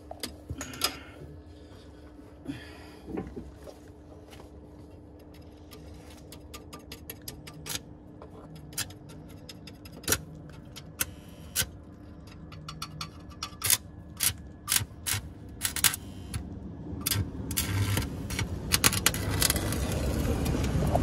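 Stick (electric arc) welding: sharp crackles as the electrode is struck and the arc catches, more and more often, building in the last few seconds into a louder, continuous crackling arc. A steady hum runs underneath.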